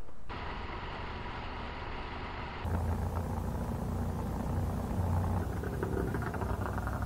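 Motorcycle on the move, heard as a steady engine rumble. The sound changes abruptly about a third of a second in, and again near three seconds in, where it becomes louder and deeper.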